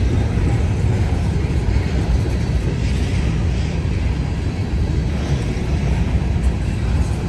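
Freight train rolling past, a steady low rumble with no horn.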